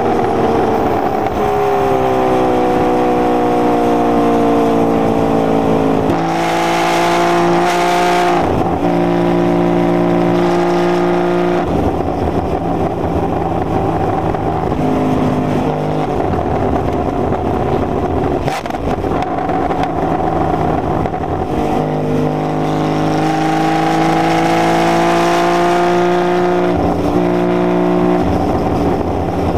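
Porsche sports car's engine heard from inside the cabin at speed on track, pulling up through the revs with sudden drops in pitch at the gear changes, steadier for a stretch in the middle, then winding up again near the end.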